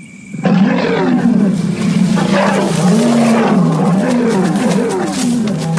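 Cats fighting: loud, drawn-out yowls and screeches that waver and slide up and down in pitch, breaking out suddenly about half a second in.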